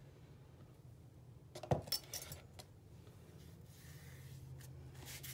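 Hands working at a craft table: a single sharp knock about a second and a half in, then light clicks and rustling as a fabric strip is smoothed down onto a book cover, over a faint steady hum.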